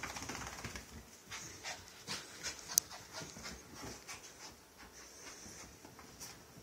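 Small dog panting as it rubs and rolls itself dry on couch blankets, its fur scuffling against the fabric in short bursts. A single sharp click a little under three seconds in.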